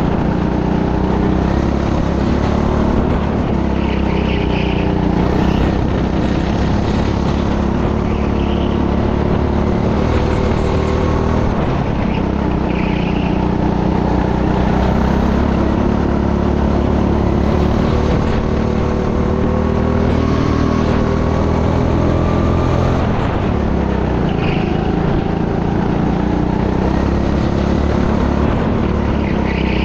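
Racing kart's engine heard from onboard, running hard under load, its revs climbing slowly along the straights and dropping back for the corners, over steady wind and road noise.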